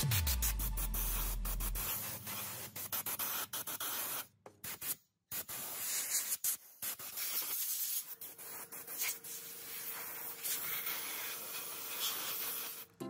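Hands rubbing and handling a plastic horn speaker: scraping and rubbing noise with many small clicks, dropping out briefly twice about four to five seconds in, with a faint steady hum over the last few seconds.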